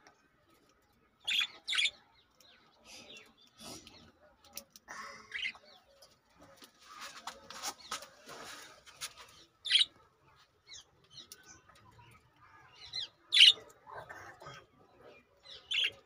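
Budgerigars chirping: short, sharp high calls, loudest about a second in, twice more later and once near the end, with softer chatter between. A stretch of rustling sits in the middle.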